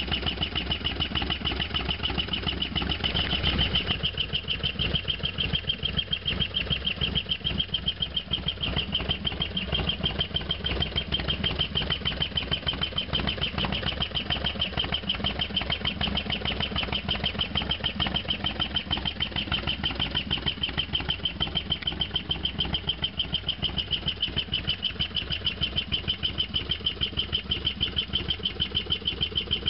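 Harley-Davidson FXDX Dyna's V-twin engine idling with a steady, even beat and no revving.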